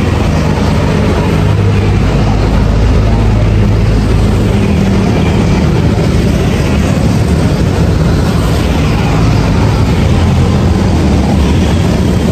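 Steady low rumble of road traffic on a city street, with an engine hum from passing vehicles that is strongest in the first half.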